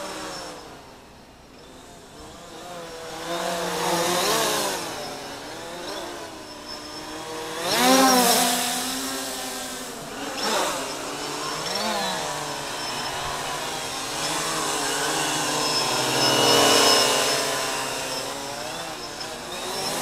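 Bayangtoys X16 quadcopter's brushless motors and large propellers whining in flight, the pitch rising and falling with the throttle and swelling several times, loudest about 8 and 17 seconds in.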